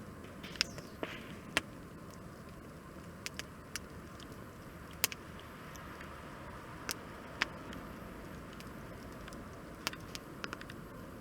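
Wood campfire crackling: about a dozen sharp pops and snaps at irregular moments over the steady low hiss of the burning fire.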